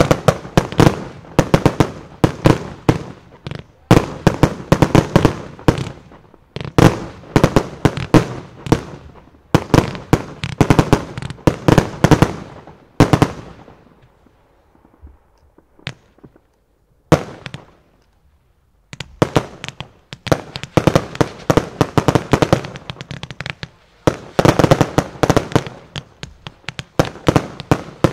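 Professional fireworks display: dense runs of rapid, sharp bangs from bursting shells. About halfway through they stop for a few seconds, with only two single bangs, then the rapid bangs start again.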